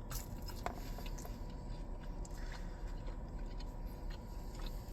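A person chewing a chicken nugget: faint, scattered mouth clicks and chewing sounds over a steady low hum.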